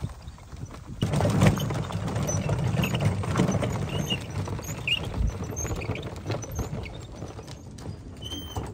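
Hand-pulled two-wheeled utility carts rattling and crunching over a frozen, snow-dusted gravel path, mixed with footsteps. The clatter starts about a second in and slowly fades.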